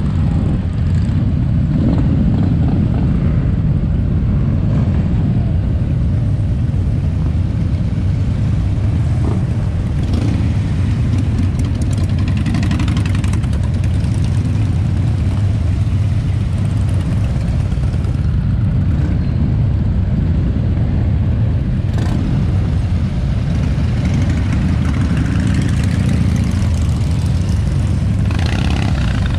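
A parade of motorcycles, mostly Harley-Davidson V-twins, passing one after another at low speed, their engines making a continuous low sound with no break.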